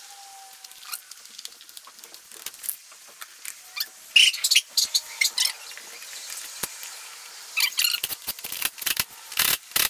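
A door panel being handled and shifted on cardboard: scrapes, taps and sharp clicks, in clusters about four seconds in and again from about eight seconds on.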